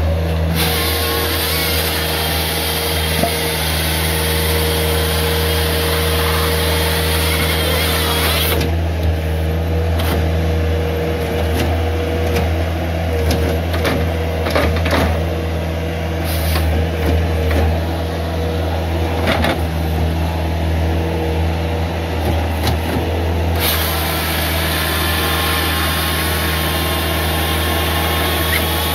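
Bobcat S300 skid steer's diesel engine running steadily as the grapple arm carries and positions logs. A high hiss is heard through the first third and again near the end, and scattered knocks come in the middle.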